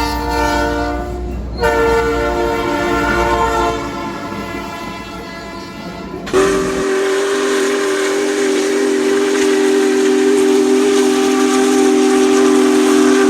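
Train horn sounding: two chords in the first few seconds, then a long steady blast of several notes from about six seconds in, with a hiss over it.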